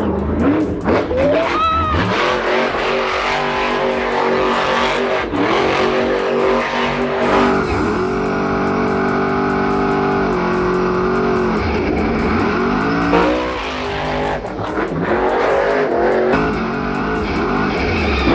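A monster truck's supercharged V8 engine revving loudly, its pitch climbing and falling as the truck drives hard, over background music.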